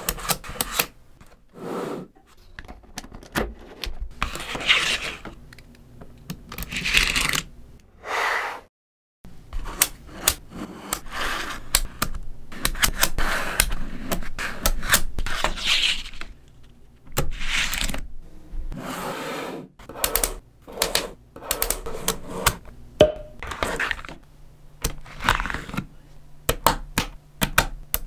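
Small neodymium magnetic balls clicking and clattering as strips of them are snapped together and pressed onto larger panels: quick sharp clicks mixed with short rattling runs. The sound drops out completely for a moment about nine seconds in.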